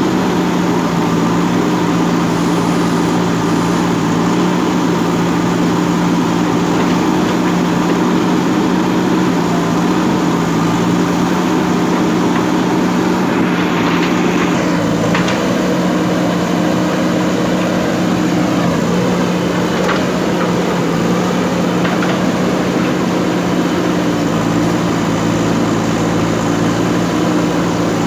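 JCB backhoe loader's diesel engine running steadily under working load, with a brief rushing noise about halfway through as the engine note dips slightly.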